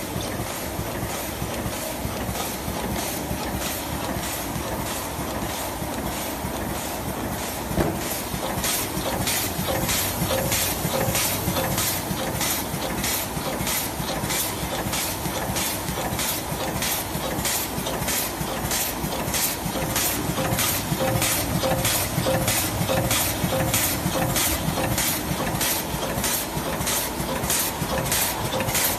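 High-speed sugar powder packing machine running steadily, with a sharp stroke repeating about twice a second from about eight seconds in as it cycles through its packing strokes. There is a single knock just before the strokes start.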